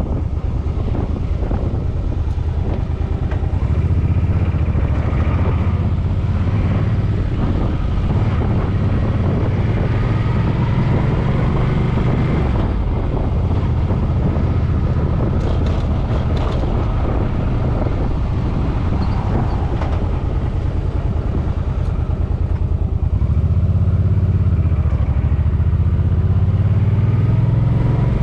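Suzuki Boulevard M50's V-twin engine running on the road, its pitch rising and falling several times.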